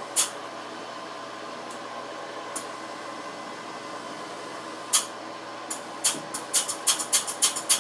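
Steady machine hum from the seat-and-guide machine, with a few sharp metallic clicks, then a quick run of clicks and taps near the end as the air-float table is moved across the cylinder head and the cutter is centred on the pilot.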